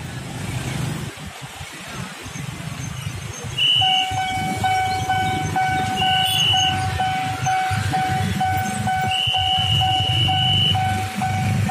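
Railway level-crossing warning bell ringing about twice a second, starting about four seconds in, over a low rumble. A high whistle-like train horn sounds three times, the last one the longest, as a train approaches the crossing.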